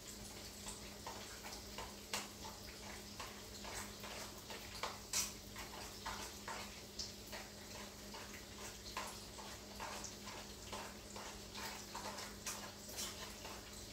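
Faint, scattered light clicks and taps of kitchen work over a steady low hum.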